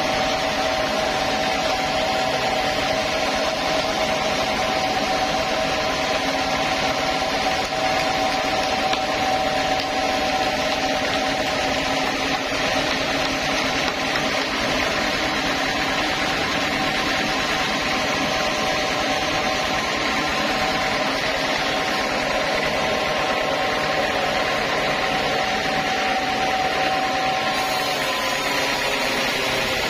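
Large band sawmill running steadily, its blade sawing through a log, with a constant whine over a steady rush of noise.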